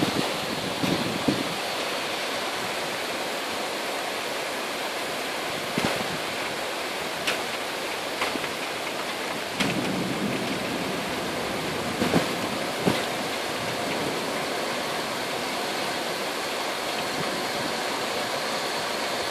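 Heavy rain falling steadily, an even hiss, with a few short sharp taps scattered through it.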